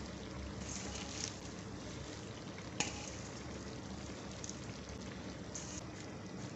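Beef and beetroot curry simmering in a pan with a steady low bubbling hiss, while handfuls of chopped spinach are dropped in with brief rustles; one sharp click about three seconds in.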